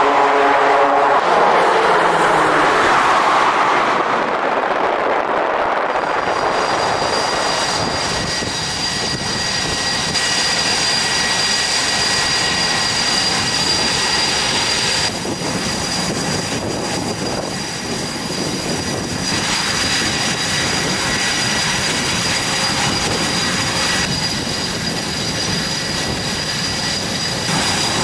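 Jet noise fading away over the first several seconds as a catapult-launched jet leaves the carrier deck. After that, F/A-18 Super Hornet jet engines run on the flight deck with a steady high-pitched whine.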